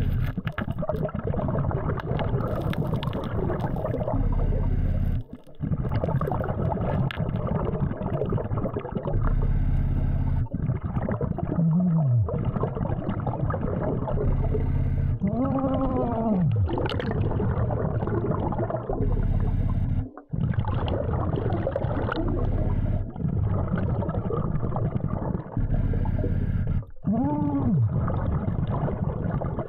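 Underwater dive audio: bubbling and breathing noise from a hookah dive regulator over a steady low hum. A few moaning tones rise and fall, three times.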